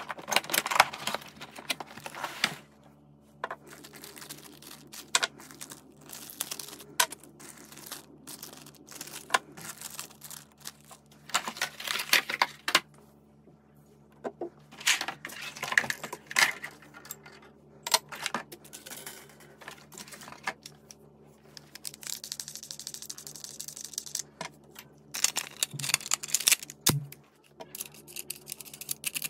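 Hands handling a cardboard shotgun box and the parts of a Benelli M2 SP: irregular rustling and crinkling of packaging, scraping, and small metal clicks and knocks as parts are taken out and fitted.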